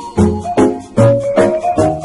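Background music: a keyboard-like melody with a steady bouncy beat, about two or three notes a second.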